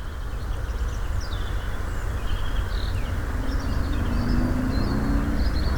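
Outdoor ambience: a steady low rumble with small birds chirping here and there. From about halfway through, a low steady drone like a distant engine joins in.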